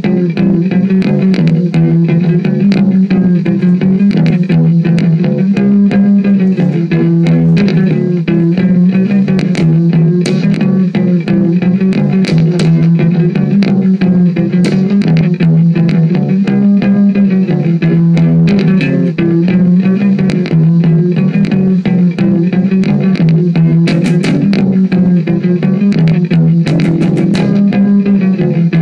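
Electric bass jam played through an electronic delay effect: a steady stream of plucked notes with their delayed repeats overlapping.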